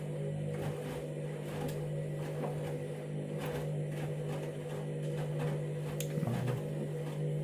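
Candy washing machine running with a steady electric hum and light scattered clicks and knocks from the drum.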